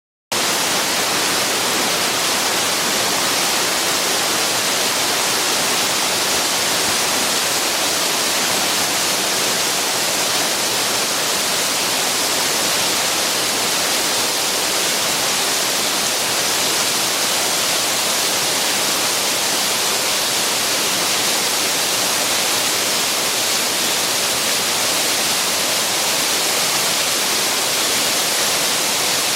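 Hiryu Falls pouring: a steady, unbroken rush of falling water.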